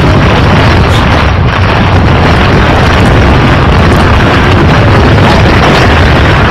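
Loud, steady, overdriven rumbling noise with no distinct events.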